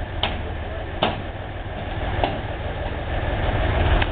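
An engine idling with a steady low rumble, with four sharp knocks at uneven spacing from work on the rails and ramp.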